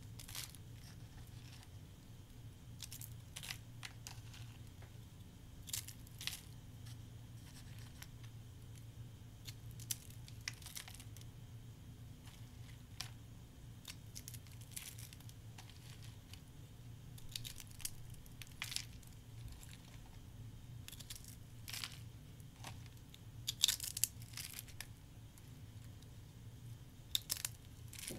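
Soap curls crackling and crunching as fingers crush them, in irregular short bursts of brittle snaps, with the biggest cluster about four-fifths of the way through.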